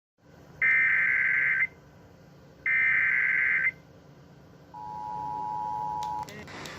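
Emergency Alert System SAME header: two one-second bursts of shrill digital data tones. About five seconds in, the two-tone EAS attention signal begins; it opens the alert for a severe thunderstorm warning.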